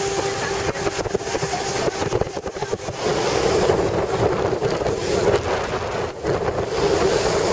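Motorboat under way: a steady engine hum beneath heavy wind buffeting on the microphone and the rush of water, growing louder about three seconds in.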